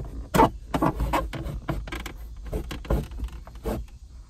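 Plastic rear-pillar trim panel of a 1986 Pontiac Fiero being pulled away from the body, making a run of irregular clicks, knocks and scrapes as it comes loose. The loudest knock is about half a second in.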